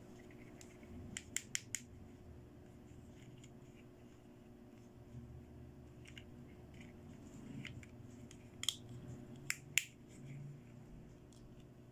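Small plastic toy doll's suitcase handled between the fingers, giving sharp plastic clicks: a quick run of four about a second in, then three more near the end as its clasp is worked.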